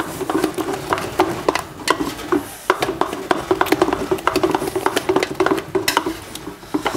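Wooden spoon stirring and beating a thick choux pastry panade in a large steel stockpot, with rapid irregular knocks and scrapes against the pot as the dough is dried over the heat. A steady low hum runs underneath.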